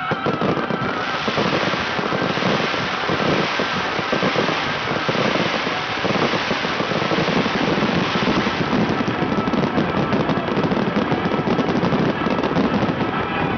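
Fireworks display: a dense, continuous barrage of rapid bangs, pops and crackling, one burst running into the next.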